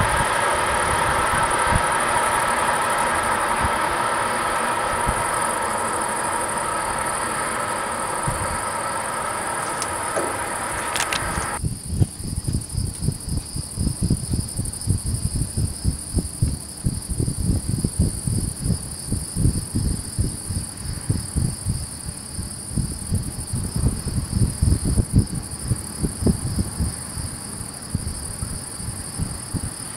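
A train running on the rails, its rushing wheel noise slowly fading as it draws away, with crickets chirping steadily. About twelve seconds in, the train sound cuts off abruptly, leaving the crickets and gusts of wind on the microphone.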